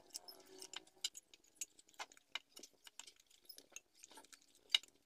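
Light, irregular clicks and taps of wooden boards and a small hand tool being handled on a wooden workbench, with one sharper knock near the end.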